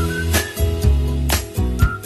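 Background music with a steady beat and a whistled melody.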